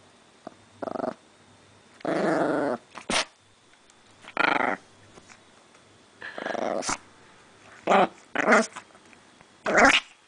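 Chihuahua growling in about seven short bouts while guarding the toy she holds in her mouth: possessive guarding of her prize. A couple of sharp clicks fall between the growls.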